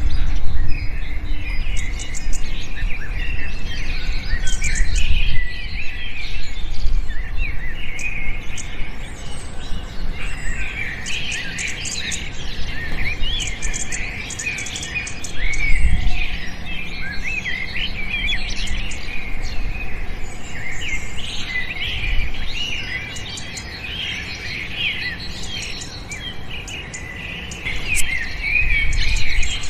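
Many small birds chirping and twittering together, a dense chorus of short overlapping calls that runs on without a break, over a low rumble.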